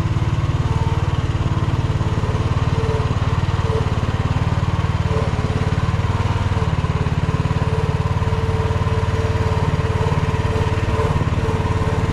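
Mini excavator's Briggs & Stratton engine running steadily at a constant speed as the machine drives slowly on its tracks.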